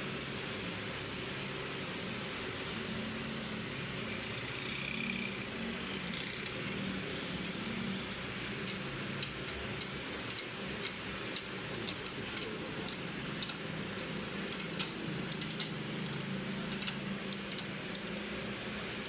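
Steady mechanical hum with scattered sharp metallic clinks from about nine seconds in, as metal parts and tools are handled during engine repair work.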